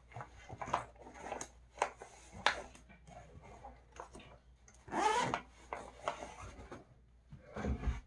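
Makeup items being handled on a counter: scattered clicks, taps and short rubbing scrapes. A brief sliding, squeak-like pitched sound comes about five seconds in, and a cluster of duller knocks near the end.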